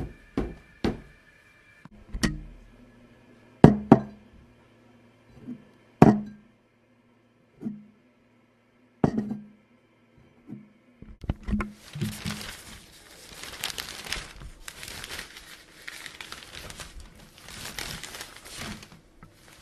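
Foley sounds: a series of separate knocks and thuds with a short low ring, spaced a second or two apart, then from about eleven seconds in a continuous crinkling, rustling noise that swells and fades in waves.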